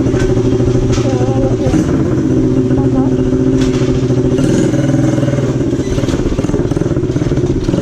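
Small ATV (quad) engine running steadily at low revs as the quad is ridden slowly.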